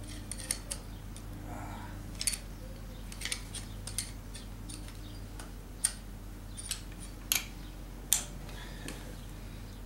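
Irregular light metallic clicks and scrapes of a screwdriver tip prying at a small part on the front of a disassembled Mazda 13B rotary engine's eccentric shaft, over a steady low hum.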